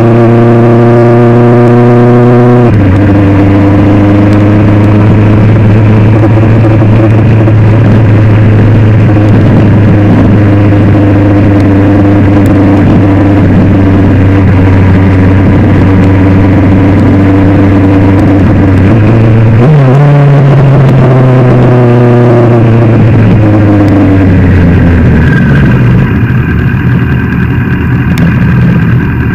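Motorcycle engine running loud and steady at cruising speed, with an upshift about three seconds in. Near the end it downshifts and the engine note falls away as the bike slows, settling into a low, rougher running.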